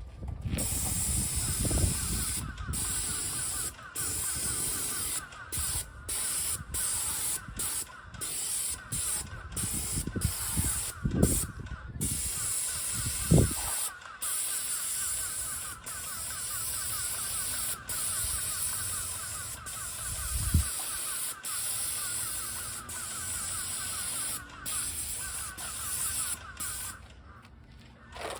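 Paint sprayer spraying paint in a steady hiss, cut off by many short breaks where the spray stops and starts again. A few dull low thumps come through in the middle.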